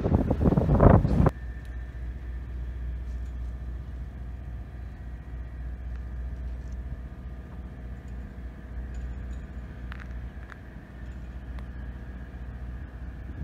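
Wind gusting on the microphone for about the first second, cut off suddenly, then steady outdoor harbour ambience: a low rumble with a faint, steady machine hum.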